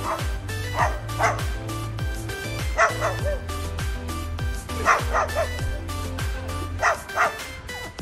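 Dance music with a steady bass-drum beat, with short dog-bark-like yaps arriving in pairs about every two seconds in time with the beat.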